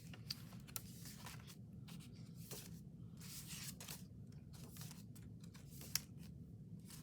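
Paper and card being handled and shifted about: soft, scattered rustling with a few light clicks, the sharpest about six seconds in, over a low steady hum.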